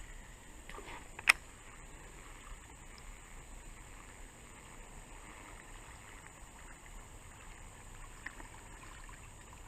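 Faint, steady water noise of a creek, with one sharp click a little over a second in.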